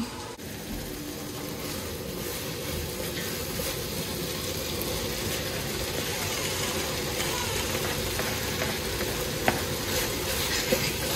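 Minced beef and chopped red onion frying in a pot, a steady sizzle, as they are stirred with a wooden spoon.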